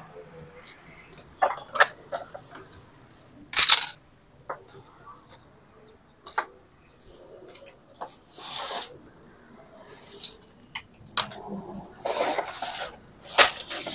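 Handling noise from a dismantled Epson LQ-2190 dot-matrix printer being shifted and turned by hand: scattered clicks and knocks of its metal and plastic frame, a sharper knock about four seconds in, and scraping shuffles near the end.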